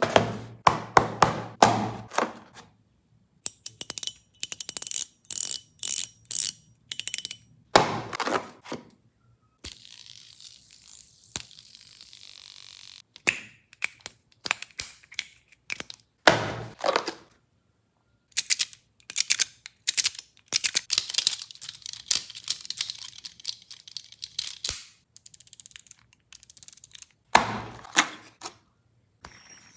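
Small fidget toys being handled, clicking, tapping and rattling in quick clusters of sharp clicks. About ten seconds in there is a few-second stretch of steady hiss.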